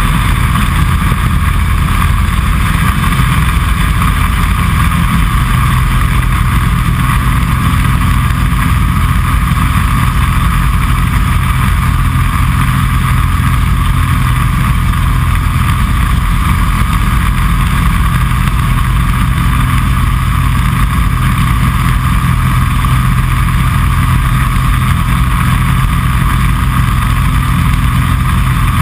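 Kitfox Series 5 light aircraft's engine and propeller at full takeoff power, heard from inside the cockpit through the takeoff roll and climb-out: a loud, steady drone whose low note settles about five seconds in.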